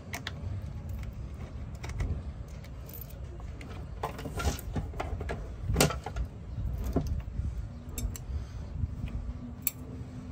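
Scattered clicks, taps and small knocks of a lithium iron phosphate (LFP) battery pack being handled and taken apart by hand as its BMS circuit board is lifted off the cells, over a low rumble. The loudest knock comes about six seconds in.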